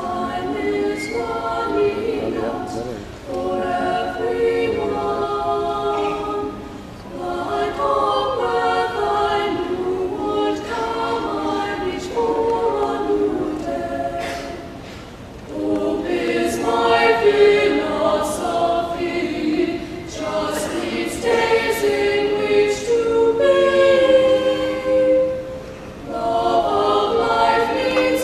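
A small group of young women's voices singing a cappella in harmony, in phrases of a few seconds with short pauses for breath between them.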